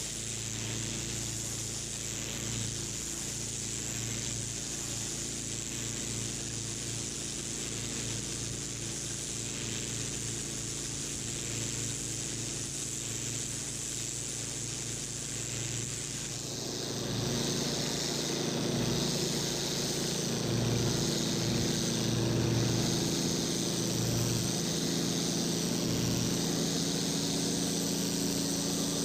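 A 21 lpm pressure washer running and spraying water onto block paving, with a steady motor hum under the hiss of the jet. A little past halfway it grows louder and the spray sound changes, with a wavering high hiss.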